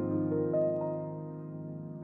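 Calm, slow piano music: a few notes held and slowly fading away, growing quieter toward the end.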